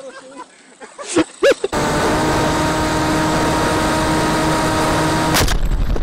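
Brief shouts, then about two seconds in a loud, steady motor hum under a rushing noise, holding one pitch, which cuts off abruptly near the end.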